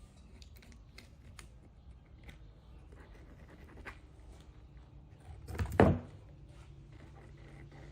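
Scattered light taps and clicks of workshop handling, with one much louder knock about six seconds in.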